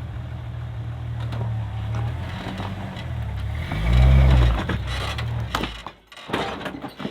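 Jeep engine idling steadily, briefly swelling louder with a rise and fall in pitch about four seconds in. The engine note dies away near six seconds, followed by a few sharp knocks.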